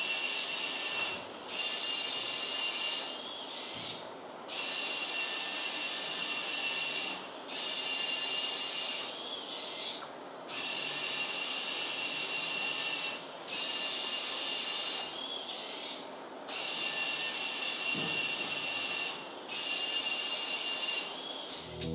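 Servo motors of a small wheeled rero robot whining as it drives. The whine comes in runs of one and a half to three seconds, broken by short pauses between moves, with some softer stretches.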